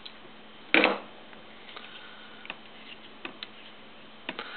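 Small metal airbrush parts and hand tools clicking as an airbrush is taken apart by hand, with one louder clatter just under a second in and a few faint ticks after it.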